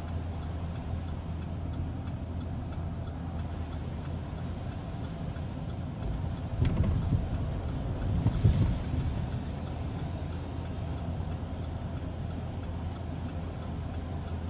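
Steady engine and road noise of a vehicle being driven, heard from inside the cabin, with faint regular ticking throughout. It grows louder and rougher for a few seconds past the middle.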